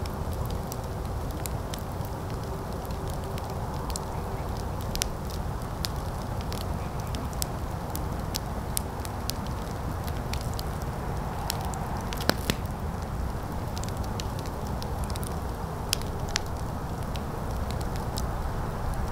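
Fire burning, with frequent sharp crackles and pops over a steady low rush; one louder pop comes about twelve seconds in.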